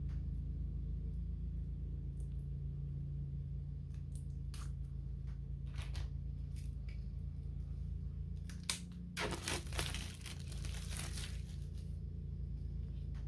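Plastic shrink wrap being torn and peeled off packs of game cards. Scattered crackles build to a few seconds of dense tearing and crinkling from about nine seconds in, all over a steady low hum.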